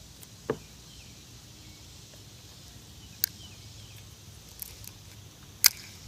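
Faint steady outdoor background broken by three short, sharp clicks or knocks; the loudest comes near the end.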